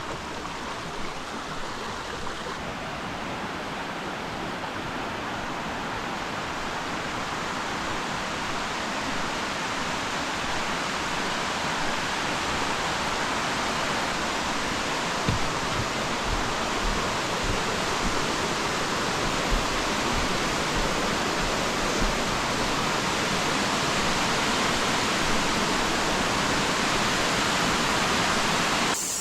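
Waterfall rushing steadily, growing gradually louder, with a few soft low thumps in the second half.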